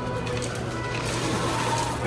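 Background music over the busy hubbub of a crowded shop.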